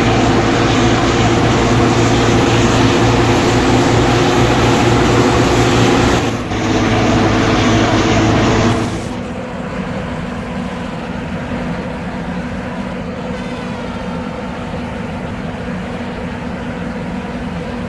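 Scania bus's diesel engine running steadily and loud, with a brief dip about six seconds in; about nine seconds in it drops suddenly to a quieter, lower steady hum.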